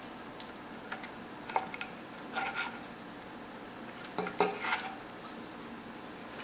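A serving utensil clinking and scraping against a pot and plate as curry oxtail is dished up. It makes scattered light clicks and two short clusters of clinks, about two seconds in and again about four seconds in.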